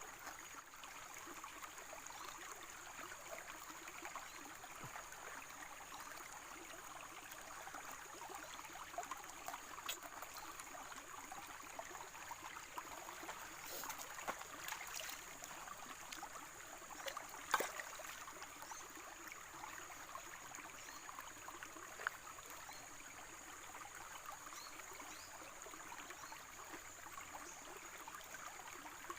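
River water flowing steadily, with a steady high-pitched tone above it. A few sharp knocks are heard, the loudest about two-thirds of the way through.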